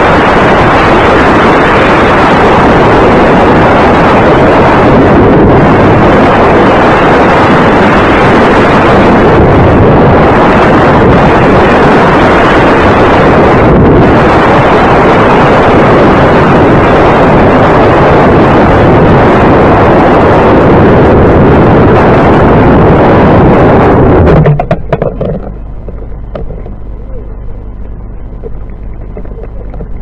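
Loud, steady rush of wind over a camera riding on a Radian RC glider in a fast dive. It cuts off suddenly about 24 seconds in as the glider goes into the ground, leaving only quiet handling noise.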